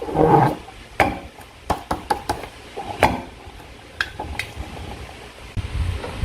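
Slime being squeezed and worked by hand: a wet squelch at the start, then a series of sharp sticky clicks and snaps.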